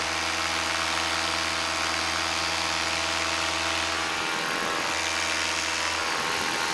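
Paramotor engine and propeller running steadily under power during a climb, with a constant hiss over the engine note.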